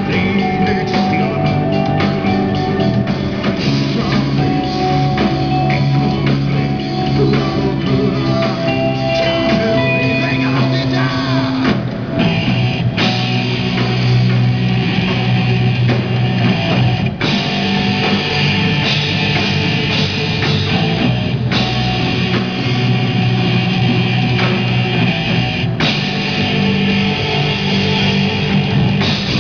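A live rock band playing: electric guitars, keyboard and drum kit together in a continuous loud passage.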